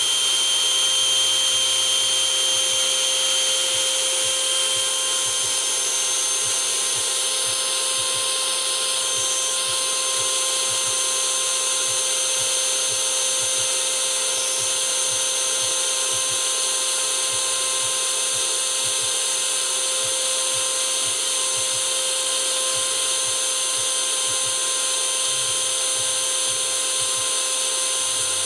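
Radio-controlled MiG-15 model jet's turbine running steadily at full throttle: a loud whine in several pitches over a rush of air.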